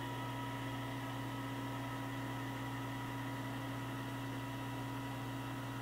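Steady electrical hum with a faint constant high whine and hiss from a powered-up 1991 Hansvedt DS-2 CNC wire EDM.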